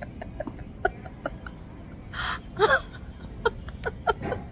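A woman laughing breathlessly in short wheezy bursts, with a sharp gasp for breath about two seconds in.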